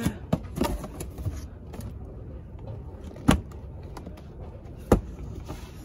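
A few sharp knocks and clicks of something being handled, two louder ones about three and five seconds in, over a steady low background hum.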